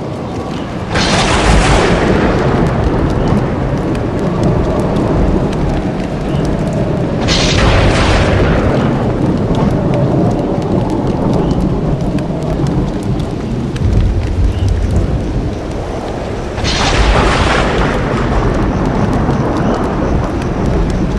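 Thunder sound effect: three sudden cracks of thunder, about a second in, about seven seconds in and about three-quarters of the way through, each rolling off into a long low rumble that carries on between them.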